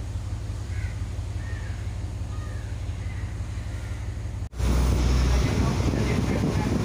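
Tata Marcopolo city bus driving: a steady low engine hum inside the cabin. About four and a half seconds in, a sudden cut brings a louder low rumble with wind buffeting the microphone.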